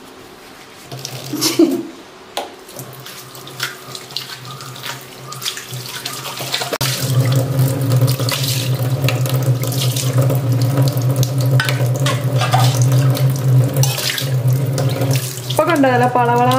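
Tap water running into a stainless steel sink and splashing as a steel cup is swished through it to rinse the basin; the flow gets louder and steadier about seven seconds in.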